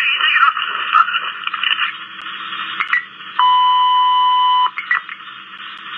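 Police two-way radio channel: about two seconds of narrow-band static and broken transmission, then a steady alert tone from the radio held for just over a second, opened and closed by short squelch clicks.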